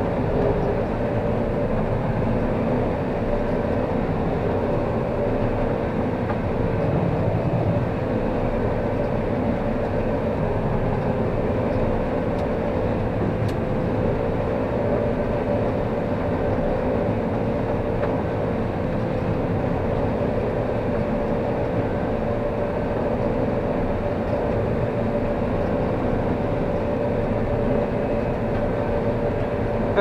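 Combine harvester running under load while harvesting corn, heard from inside the cab: a steady machinery drone with a constant hum and no change in pace.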